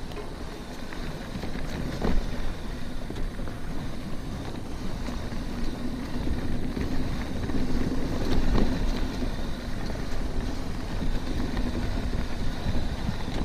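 Mountain bike rolling downhill on a dirt trail, with tyre and wind noise and a steady tone from disc brake pads rubbing on the rotors. A couple of sharp knocks come from the bike going over bumps.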